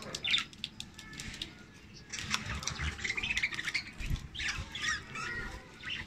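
Budgerigars chattering and squawking in short, scratchy chirps, with light splashing and clicks as a budgie dips its wings into a cup of water to bathe.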